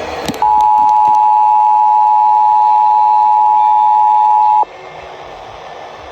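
Emergency Alert System attention signal: a loud, steady two-tone chord of 853 Hz and 960 Hz. It starts about half a second in, holds for about four seconds and cuts off abruptly. The tone signals that an emergency alert message follows, here the statewide monthly test.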